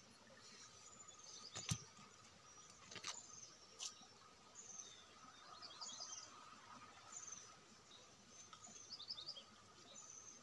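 Faint forest birdsong: short high chirps repeating every second or so, with quick runs of falling notes now and then, over a faint steady hum. Two sharp clicks sound within the first four seconds.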